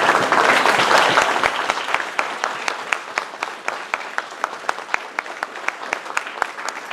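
Audience applause, dense at first and thinning out to scattered individual claps.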